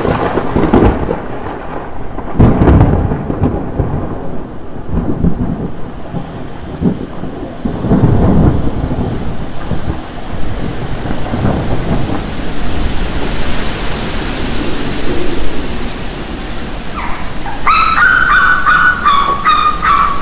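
Thunderstorm: rolling thunder rumbling several times over steady rain that grows louder, with a high, wavering cry near the end.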